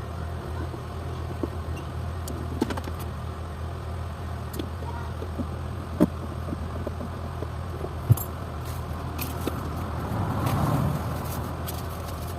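A car engine idling steadily, with a few sharp metallic clicks and a brief swell in the sound about ten seconds in.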